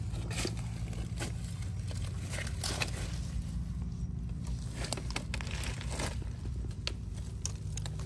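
Dry leaf litter rustling and crackling in short, scattered bursts as a hand and small knife work through it to pick wild mushrooms off the forest floor, over a steady low rumble.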